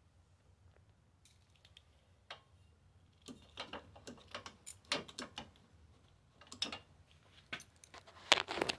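Light metallic clicks and knocks from a go-kart's welded steel pedal and brake linkage being worked by hand. They come in an irregular run starting about three seconds in, with the loudest knock near the end.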